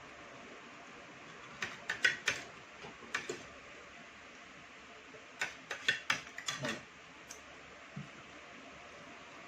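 Cutlery clicking and clinking against plates during a meal, in two short flurries of sharp clicks, one about two seconds in and one about five seconds in, over a steady hiss.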